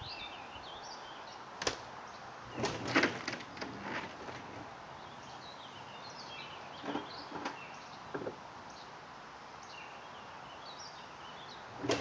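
Birds singing in short chirping phrases, over scattered knocks and clatters, the loudest cluster about three seconds in and a few more later.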